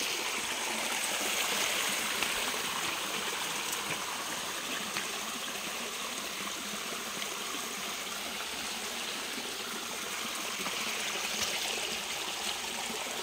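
Small rocky creek running and trickling over stones, a steady sound of flowing water.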